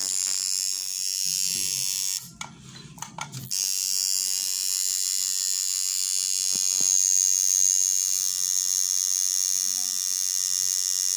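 Tattoo machine buzzing steadily as it lines a tattoo outline on skin. It cuts out about two seconds in and starts again about a second later.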